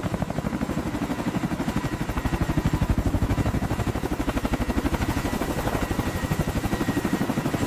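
Helicopter rotors turning close by, a fast, even chop of many beats a second under a faint steady turbine whine.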